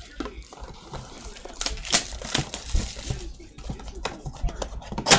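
Plastic shrink-wrap on a cardboard trading-card blaster box crinkling and tearing as the box is handled and unwrapped: irregular crackles, the sharpest about two seconds in and near the end.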